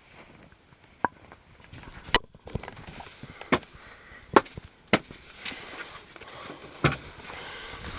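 A series of about six sharp, separate knocks and clicks at irregular intervals, the loudest about four and a half seconds in, over a faint hiss.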